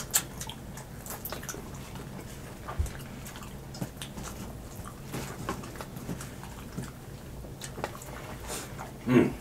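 Close-miked eating of fried chicken wings: scattered small chewing clicks and lip smacks at irregular intervals, over a faint steady low hum.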